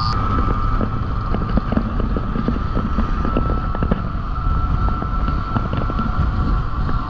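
Motorcycle riding along, heard from an on-board camera: a steady engine drone with a high, even whine, and wind on the microphone. A run of small crackles comes through in the middle.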